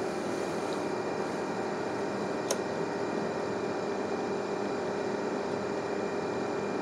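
Steady mechanical room hum with a few faint even tones, typical of air conditioning. A single short, sharp click about two and a half seconds in.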